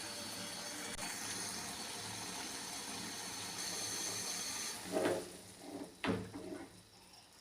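Steady sizzling hiss of food frying in a pan, stopping suddenly about five seconds in, followed by two knocks about a second apart.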